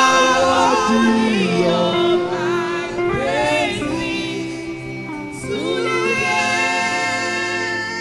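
Gospel singing: a male lead singer with female backing singers, the voices holding long notes and sliding between pitches.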